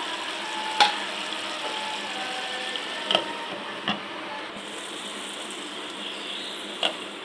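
Ridge gourd and shrimp curry simmering with a steady sizzle in a nonstick pan, broken by four sharp clicks. The sharpest comes about a second in; the two a little past three seconds and near four seconds are a glass lid clinking as it is set on the pan.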